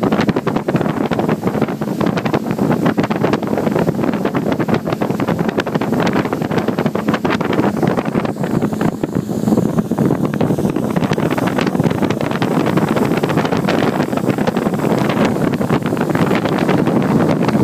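Wind buffeting the microphone on a motorboat running at speed, over the steady rush of the boat and the water.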